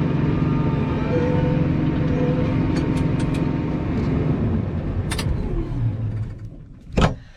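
Engine running steadily, then shut off and winding down over a second or two, with a sharp knock near the end.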